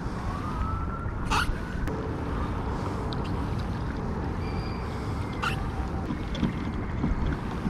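Wind rumbling on the microphone and water washing along the hull of a pedal-drive kayak under way, with two short hissing splashes, about a second and a half in and again past the middle.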